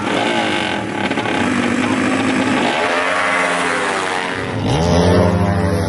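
Modified drag-racing motorcycles revving hard at the start line, then a bike launching. The engine note climbs steeply and is loudest as the bike passes close, about five seconds in.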